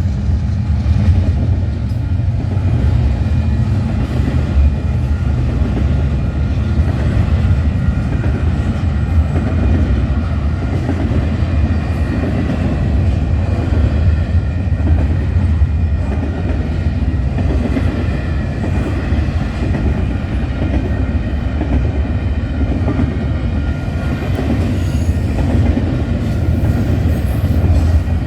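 A long freight train rolling past, its cars' steel wheels making a steady rumble on the rails, with a few faint, steady high-pitched tones of wheel squeal above it.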